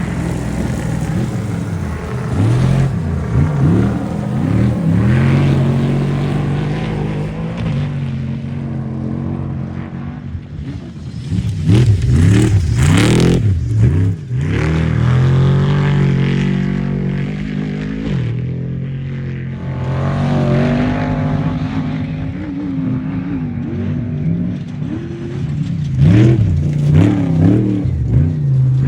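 Off-road race vehicles' engines revving and passing, rising and falling several times over a steady engine drone, loudest about twelve seconds in and again near the end.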